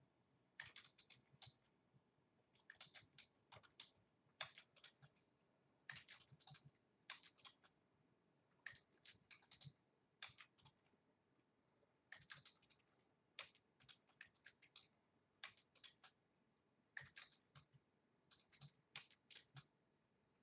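Faint typing on a computer keyboard: irregular bursts of quick keystrokes separated by short pauses.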